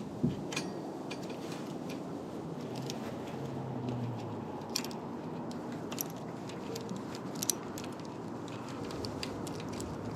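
Scattered light metallic clicks and taps of a multi-tool's Allen key working a bolt on a bicycle brake to get the part off.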